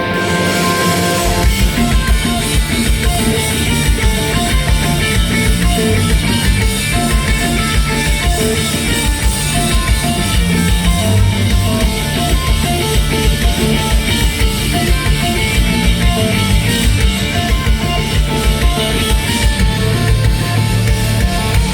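Live metalcore band playing an instrumental passage: distorted electric guitars, with the full drum kit coming in about a second in on a fast, driving kick-drum pattern.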